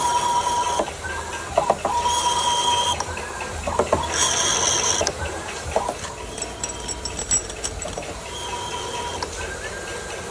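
A DIY CNC lathe's closed-loop stepper motors driving the axes through ball screws: whining tones that start and stop with each move, changing pitch from one move to the next, over a low hum and scattered clicks.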